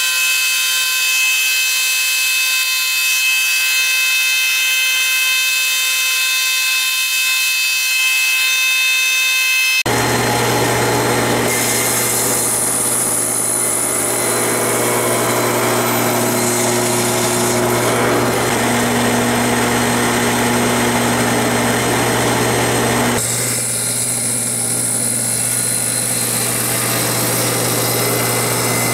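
Woodworking power machines running while milling and cutting thick maple: a steady high-pitched machine whine for about the first ten seconds, then, after an abrupt change, a table saw running with a steady low hum as maple boards are crosscut on a sled.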